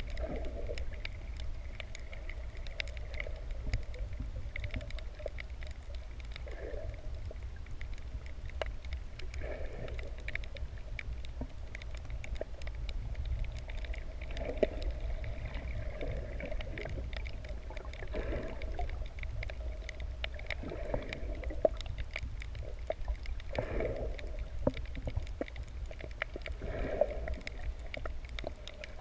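Underwater ambience picked up by a camera held below the surface while snorkelling: a steady low rumble of moving water, scattered faint clicks, and a swell of noise every few seconds.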